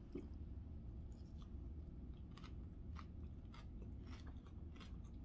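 A person chewing a mouthful of chicken salad, with faint, irregular short clicks from the mouth.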